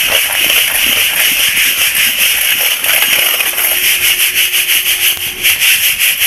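Sand-roasted moong beans being sifted in a metal sieve and stirred round with a steel spoon, separating the beans from the hot sand they were roasted in. It makes a steady gritty rustle of sand and grains, pulsing with the spoon strokes.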